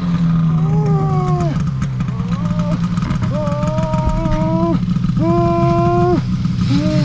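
A person with the wind knocked out of him, letting out a series of long, strained, pitched gasps and groans while fighting to catch his breath, five in a row. Underneath, a snowmobile engine idles steadily.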